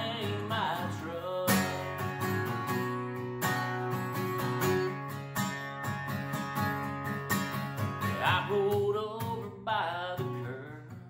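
Acoustic guitar strummed in a country song, an instrumental stretch between verses. A man's singing voice comes in briefly just after the start and again near the end.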